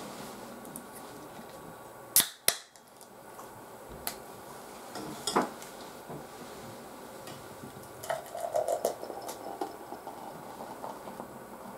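A drink can snapping open with two sharp cracks about two seconds in. From about eight seconds in the drink is poured into a stainless steel mug, a quick run of gurgling splashes.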